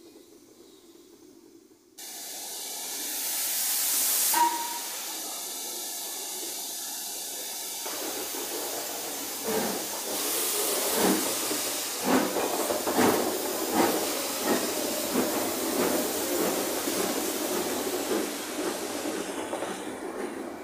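Two coupled steam locomotives, an LMS Black 5 and an LMS Ivatt 2MT. A loud hiss of steam starts suddenly about two seconds in and builds, with a brief whistle note about four seconds in. From about ten seconds in, uneven exhaust chuffs sound over the hiss as the engines get under way.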